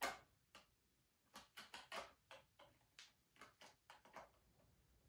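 Faint, irregular clicks and ticks of a lens being turned and pressed against the Blackmagic Pocket Cinema Camera 4K's lens mount, about fifteen in a few seconds and then dying away: the lens is not lining up and will not seat.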